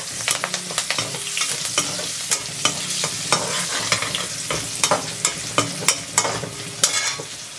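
Curry leaves and green and dried red chillies sizzling in hot coconut oil, with many sharp spitting crackles over a steady hiss, while a perforated metal spatula stirs and scrapes them around the pan.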